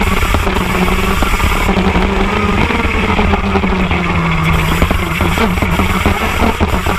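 TM KZ10B 125cc two-stroke shifter kart engine running at speed on track, its pitch sagging as the revs fall through a corner and then rising again as it accelerates out, about five seconds in.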